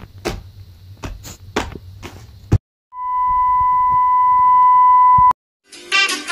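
Clicks and rustles of a plastic toy package being worked open, cut off abruptly about two and a half seconds in. A steady, high test-tone beep, the 1 kHz tone that goes with TV colour bars, follows for about two and a half seconds and stops suddenly. Plucked guitar music starts near the end.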